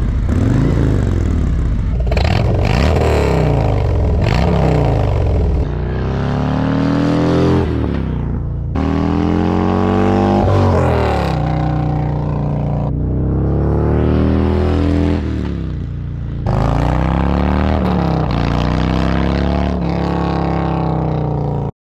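Harley-Davidson Road Glide Special's V-twin engine and exhaust, heard through both the stock mufflers and Tab Performance Zombie slip-on mufflers, in a run of edited clips of revving and ride-bys. The pitch climbs and falls with throttle and gear changes, and the sound jumps abruptly several times where one clip cuts to the next.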